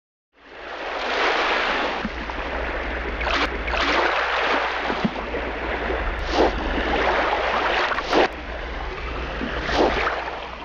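Rushing water and spray from a boat running over choppy waves, with a low steady rumble underneath and a louder splash every second or two.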